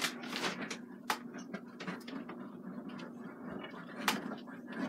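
Oil paint being worked onto canvas: a few short, scratchy strokes of the brush about a second in and near the end, over a faint steady hum.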